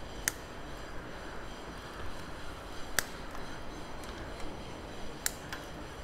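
Quiet steady background hum, broken by three short, sharp clicks spaced a few seconds apart.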